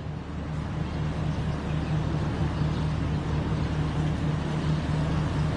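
Steady outdoor rumble with a low, engine-like hum that grows a little louder, with no distinct blasts standing out.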